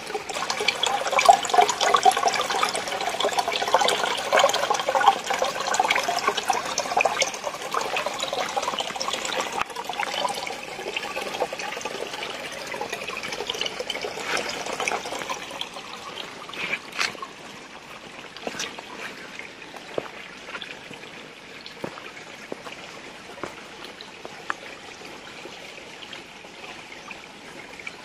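Shallow stream trickling and splashing over stones, loudest for the first half and fading away after about fifteen seconds, with a few short knocks later on.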